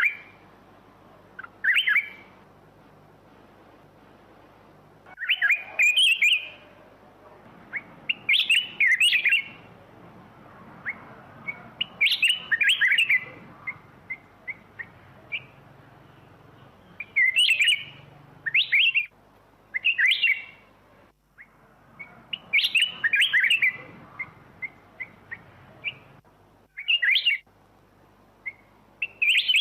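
Black-crested bulbul singing: short, bright phrases of quick chirping notes, each about a second long, repeated every two to three seconds.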